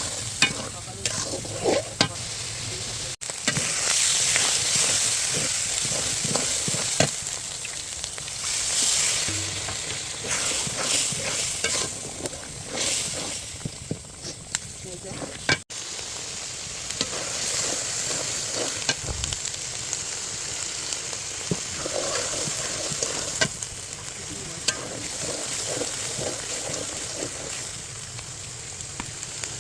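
Beef brain stir-frying in hot oil in a pan, sizzling steadily, while a spatula stirs and scrapes it with frequent sharp clicks against the pan.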